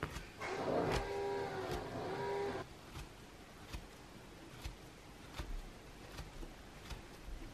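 A wavering pitched whine for about two seconds, the loudest sound here. After it, a small kitchen knife slices a peeled banana on a cutting board, with a light click a little more than once a second as the blade meets the board.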